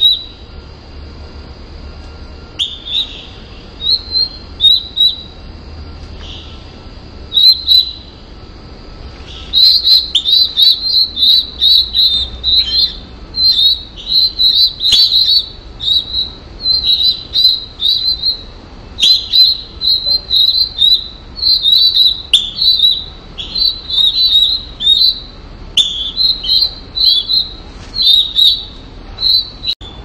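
Northern cardinal nestlings' begging calls at the nest: short, high chirps, a few scattered at first, then quick runs of them from about ten seconds in.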